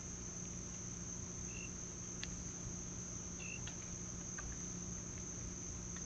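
Night insect chorus of crickets trilling, one continuous high-pitched band without a break. Two short chirps, about one and a half and three and a half seconds in, and a few faint clicks sound over it.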